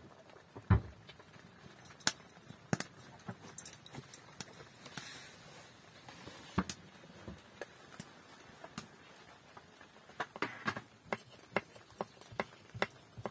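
Kitchen knife chopping on a wooden cutting board: steady taps about three a second, starting about ten seconds in. Before that, scattered knocks and clicks, the loudest a single thump about a second in.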